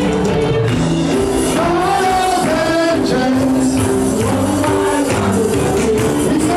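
Church worship music: a sung melody over band accompaniment, steady and loud.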